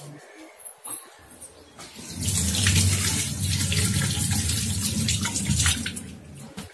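Kitchen tap running, the water splashing over a tomato being rinsed by hand and into a stainless steel sink. The water starts about two seconds in and is turned off near the end.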